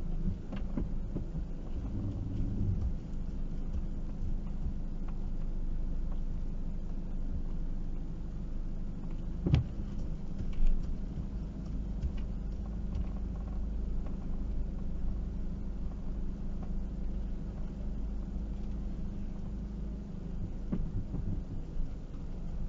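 Hymer ML-T 580 camper's engine idling steadily, a low rumble heard from inside the cab. A sharp click comes a little before halfway, followed about a second later by a short thump.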